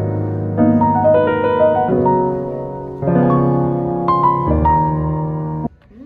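Background piano music, chords and a melody line, which cuts off abruptly near the end.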